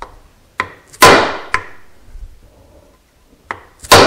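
Mallet blows on a wooden block held against a 6204 crankshaft ball bearing, tapping it down into its heated boss in the engine crankcase to seat it. There are two hard strikes, about a second in and near the end, with lighter knocks around them.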